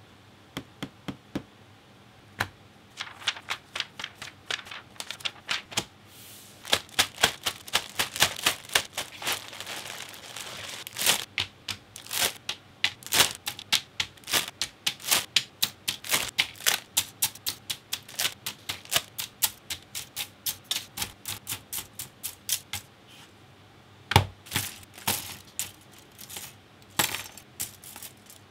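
Plastic model-kit runners clicking and clacking against each other as they are handled and unpacked, dozens of sharp knocks. Through the first half a clear plastic parts bag crinkles and is torn open.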